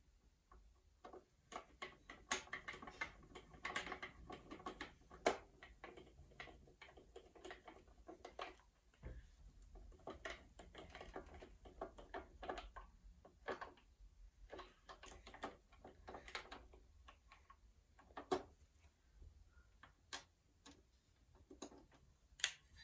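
Small screws being set and turned in by hand with a screwdriver in the bottom panel of a Marantz TT451 turntable: faint, irregular clicks and ticks of the screwdriver and screws, with light handling of the case.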